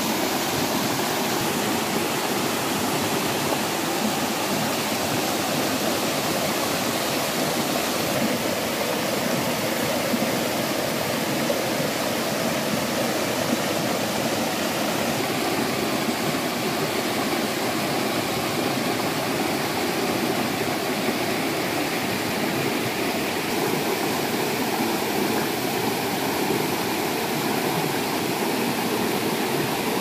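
Waterfall water cascading over rocks in a steady, unbroken rush.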